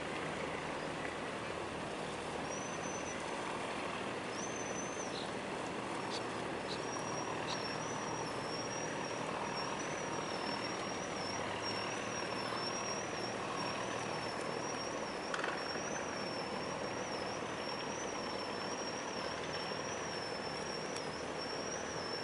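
Steady diesel engine rumble and water noise from motor barges on the canal. A thin, high, slightly wavering whine comes in a couple of seconds in and carries on over it.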